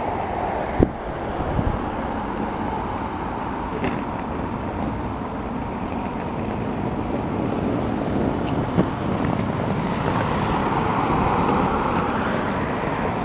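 Steady outdoor noise at a railway platform: low wind rumble on the microphone mixed with road traffic, swelling slightly near the end, with a few faint knocks.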